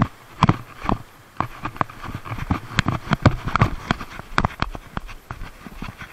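Sandalled feet scrambling over the boulders of a rock breakwater: irregular slaps and knocks, a few each second, with hands pressing on the rock.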